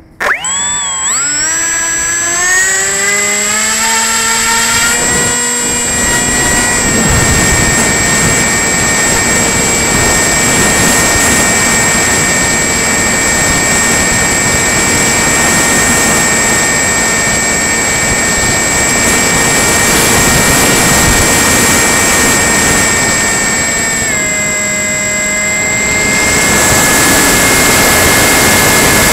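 RadJet RC plane's motor spooling up from a standstill with a rising whine, then running at a steady, loud high-pitched whine. The pitch dips slightly about 24 seconds in, and a broader rushing sound swells near the end.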